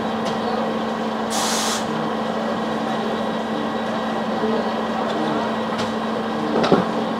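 Steady vehicle running noise: a constant low hum over an even road rush, with a short hiss about a second and a half in.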